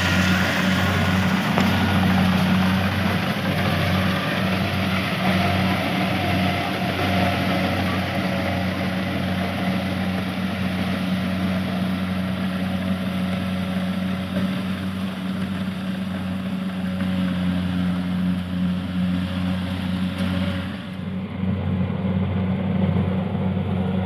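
Engine of a rice harvesting machine running steadily at a constant speed, with a rushing noise over it that thins out near the end.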